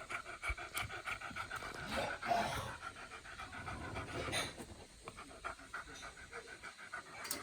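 Beagle panting rapidly, a quick, even run of short breaths.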